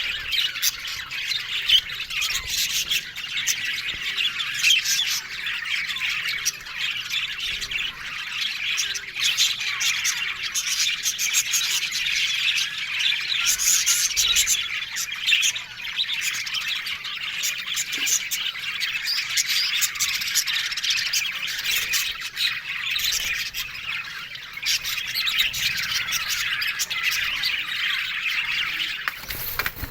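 A flock of budgerigars chattering, chirping and squawking together without pause, a dense, busy aviary chorus.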